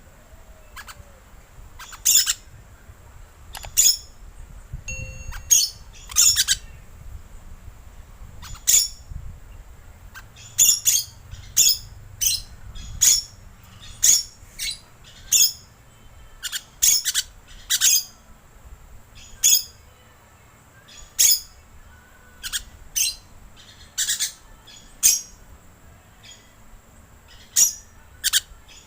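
Green lorikeet giving short, shrill screeching calls, repeated irregularly and often in quick pairs or runs of three or four: a call used as a lure for lorikeets.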